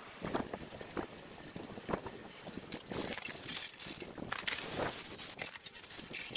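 Water from a garden hose spraying onto an old tractor's metal bodywork and tyres to wash off dirt and debris: a hiss and splatter that rises and falls as the jet moves, with scattered short knocks.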